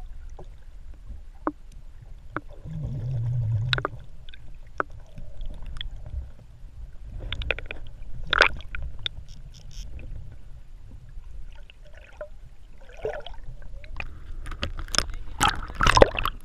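Water sloshing and gurgling, with scattered knocks and clicks and a louder cluster of knocks near the end. A brief low hum sounds about three seconds in.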